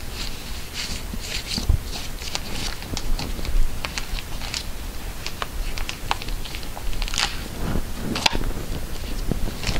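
Comic books in plastic bags being handled and flipped through: a steady run of crinkling and rustling from the bags, with about one light bump near the start.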